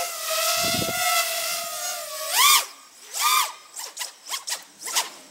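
Small quadcopter's Emax RS2205 2600kv brushless motors spinning DAL T4045 bullnose tri-blade props. They give a steady whine while hovering, then from about two seconds in a series of quick throttle punches, each one sweeping the pitch up and back down, the later ones short and rapid.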